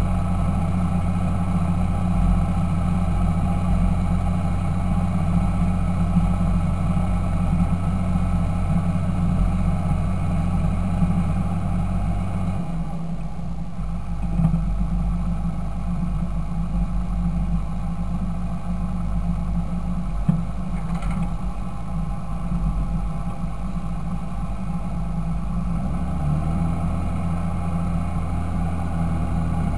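Fendt 926 Favorit tractor's six-cylinder diesel engine running steadily. About a third of the way in the engine note drops to a lower speed, and a few seconds before the end it rises again.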